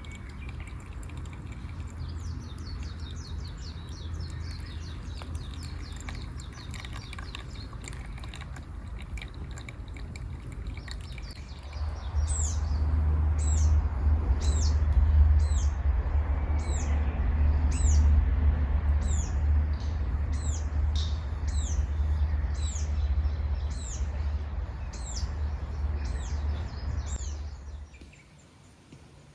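A bird calling over and over, short high notes that sweep downward, a little more than one a second, starting about twelve seconds in and stopping near the end, over a steady low rumble.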